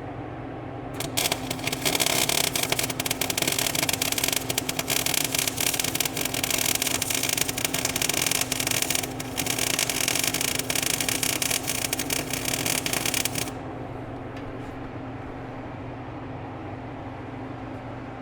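Electric welding arc crackling and hissing in a dense, steady sputter for about twelve seconds, starting about a second in and cutting off abruptly. A steady engine hum runs underneath throughout.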